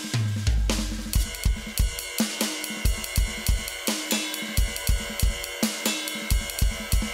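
Sampled acoustic drum kit from a Roland TD-30 drum module, played on electronic pads: a steady groove of kick, snare, hi-hat and cymbal hits, opening on a deep, long-ringing low hit.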